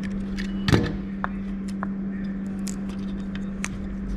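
Wiring and plastic connectors being handled while the motor cable is unplugged from an electric scooter's controller: one louder knock about a second in, then a few light clicks, over a steady low hum.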